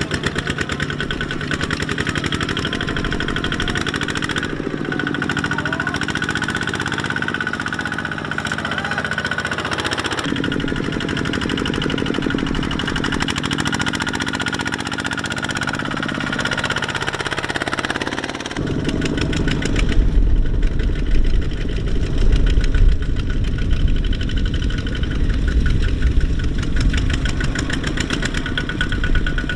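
Single-cylinder diesel engines of two-wheel walking tractors chugging steadily under load as they haul rice-laden trailers through mud. The engine sound shifts abruptly a few times and is louder and deeper for the last third.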